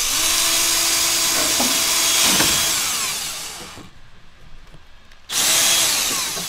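Power drill running as its bit goes through the engine cowling into pre-drilled hinge holes: one run of about four seconds that tails off, then a second, shorter run starting about five seconds in.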